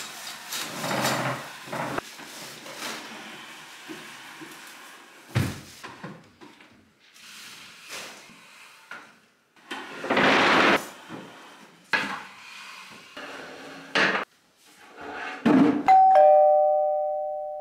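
Wooden table and chairs being moved about, scraping and knocking on the floor, with a few sharp knocks. Near the end a two-tone ding-dong doorbell rings, a higher note then a lower one, ringing on as it fades.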